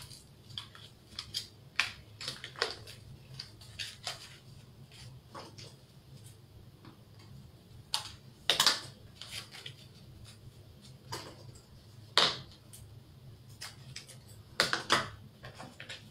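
Scattered crinkles and clicks from a paper yeast packet being handled, with a few sharper knocks or clinks on the tabletop things: one about halfway through and two more near the end.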